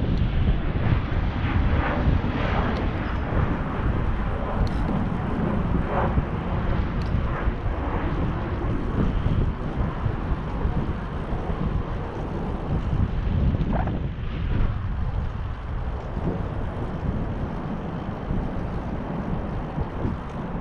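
Wind rumbling on the microphone of a moving bicycle, a loud steady low roar, with a few faint clicks and knocks from the ride.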